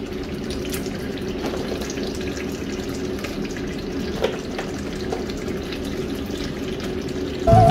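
Thick masala curry bubbling and spluttering in a large aluminium pot on a gas stove, with a steady low hum underneath. Music comes in loudly near the end.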